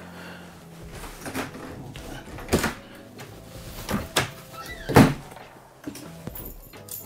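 About five sharp knocks and thumps from hard objects being handled, spread over a few seconds, the loudest one about five seconds in, with light rustling between them.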